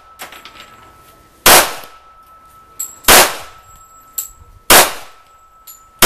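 Smith & Wesson M&P45 pistol firing .45 ACP rounds at a steady pace, about one shot every second and a half: three shots, with a fourth right at the end, each with a short echo. Fainter sharp clicks fall between the shots.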